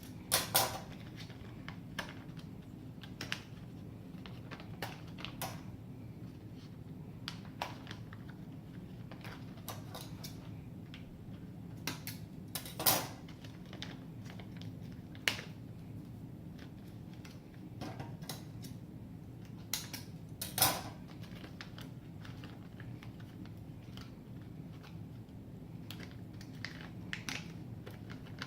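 Package being cut open and handled: scattered sharp clicks, taps and knocks at irregular intervals, the loudest near the start and about 13 and 21 seconds in, over a steady low hum.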